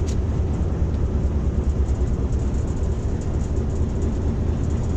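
Hitachi HBU-20 diesel-electric locomotive running, heard from inside its cab as a steady low rumble.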